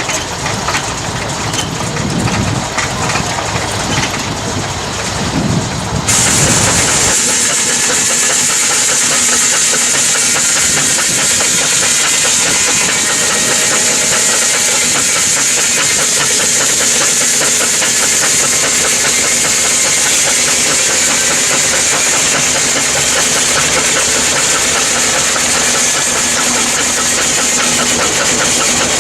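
Machinery running steadily. About six seconds in the sound changes abruptly to a steady, loud, hissing noise that lasts to the end.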